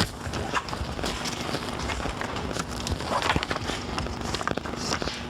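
Footsteps with irregular light knocks and clatter over a low rumble.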